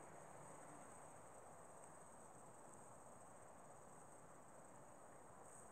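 Near silence, with a faint steady high-pitched chirring of insects.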